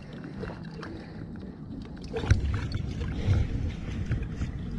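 Wind buffeting the microphone as a low, gusty rumble that grows louder about two seconds in, with a few faint clicks from handling the bait bucket.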